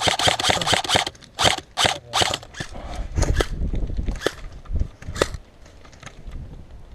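Airsoft guns firing: a quick burst of sharp clacking shots in the first second, then single shots every half second or so, dying away after about five seconds.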